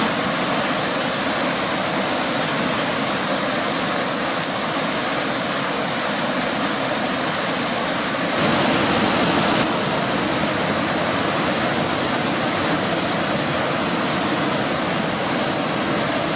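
Waterfall rushing steadily over boulders, with a short louder swell about eight and a half seconds in.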